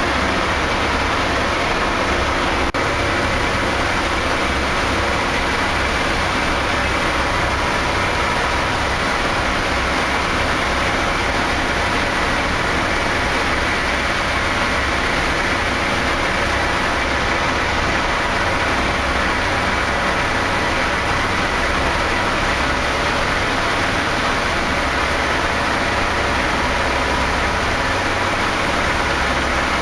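A B-17 bomber's four Wright R-1820 Cyclone radial engines running at high power during takeoff and the climb-out, heard from inside the fuselage as a loud, steady drone.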